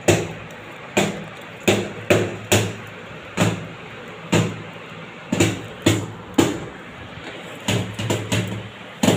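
Short rasping strokes of a hand razor cutting stubble on a man's neck and cheek, about one or two a second at an uneven pace.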